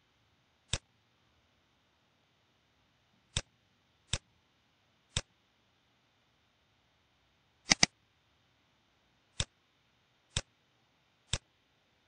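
Computer mouse clicks, about nine sharp single clicks spaced irregularly, with one quick double-click about two-thirds of the way through, over a quiet background.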